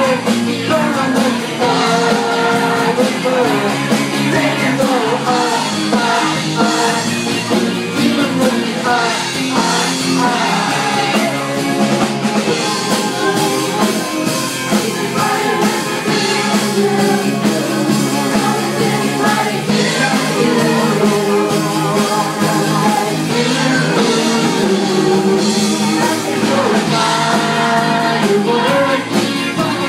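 Live rock band playing loud and without a break: electric guitars and a drum kit, with a singer through a microphone.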